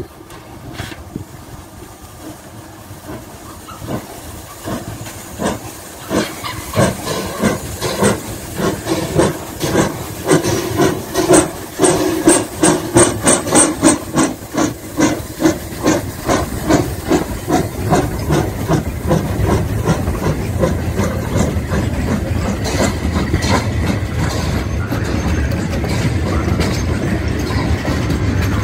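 Gr 880-051 steam tank locomotive pulling away with a passenger train: exhaust chuffs begin about four seconds in, slow at first and then quickening, loudest around the middle, over steam hissing at the cylinders. In the last part the chuffs give way to the steady rumble of the carriages rolling past.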